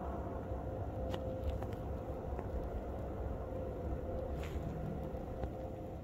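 Distant outdoor warning siren, a Schaumburg T-128 on an extended alert, holding one steady tone over a low rumble, with a few faint clicks.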